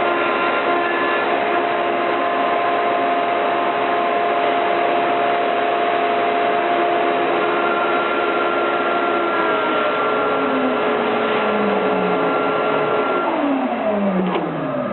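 CNC router spindle with a 1/4-inch bit running at a steady high whine over the MDF cut. From about ten seconds in its pitch falls steadily as the spindle spins down at the end of the job.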